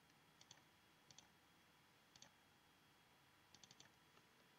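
Faint computer mouse button clicks: short pairs about a second apart, then a quick run of four near the end.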